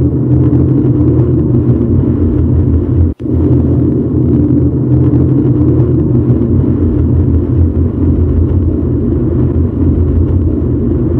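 Loud, steady low rumbling drone under a channel's closing title card, dropping out for a split second about three seconds in.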